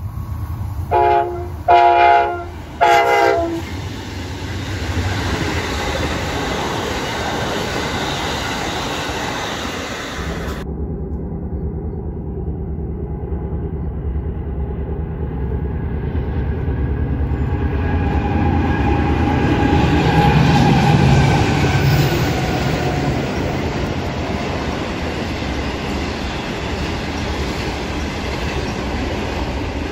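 An Amtrak passenger train sounds three horn blasts and then runs on with a steady rumble. About ten seconds in, the sound changes abruptly to a double-stack container freight train passing close. It grows loudest as its locomotives go by, about two thirds through, then its wagons keep clattering past.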